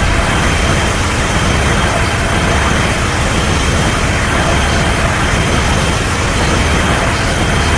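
Destoroyah monster sound effect: a loud, steady rushing noise with a deep rumble underneath and a faint high whine.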